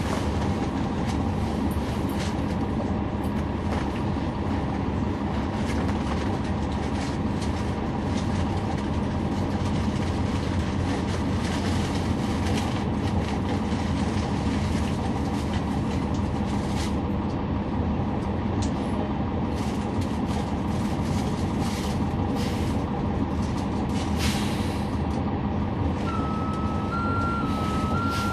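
Cabin noise aboard a 2011 NABI 40-SFW transit bus: its Cummins ISL9 diesel engine running with a steady low drone, with scattered rattles and clicks. Near the end an electronic tone sounds for about three seconds, wavering between two close pitches.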